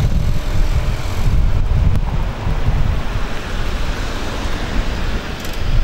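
Wind rumbling on the microphone, mixed with the sound of road traffic.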